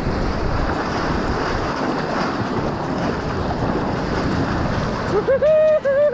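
Shallow surf washing and splashing as a shark is let back into the water, with wind on the microphone. Near the end a person lets out a long, high whoop that breaks once and then falls in pitch.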